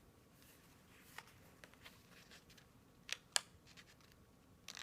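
Mostly quiet room with a few faint, short clicks and taps, the clearest two close together past the three-second mark.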